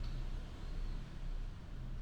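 Steady background hiss with a low hum: room tone, with no key presses yet.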